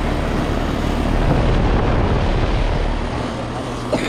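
Central air-conditioner outdoor condenser units running: a steady roar of the condenser fans with a low compressor hum, easing slightly about three seconds in.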